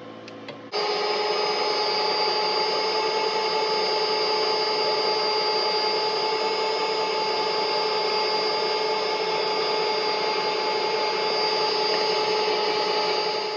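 Electric stand mixer running steadily, whisking cake batter in a stainless steel bowl, with an even motor whine. It starts suddenly about a second in.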